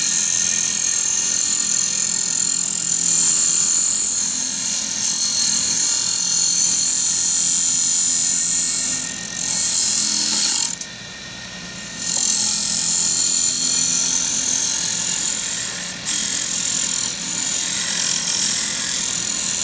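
Skew chisel cutting a spinning wood-and-resin medallion blank on a wood lathe: a steady high hiss over the low hum of the lathe. The cut breaks off twice near the middle, once for about a second, then resumes.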